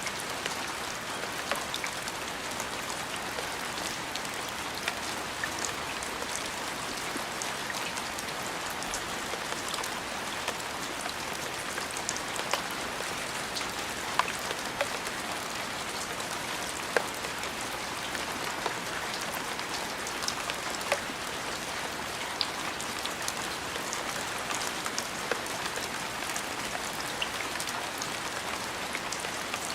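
Steady rain falling, an even hiss with scattered sharper drop ticks now and then.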